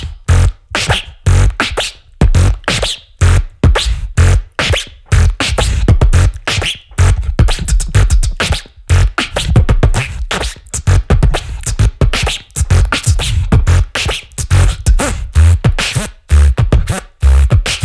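Beatboxing into a handheld microphone: a fast, dense rhythm of deep bass kicks with sharp snare and click sounds, with no words.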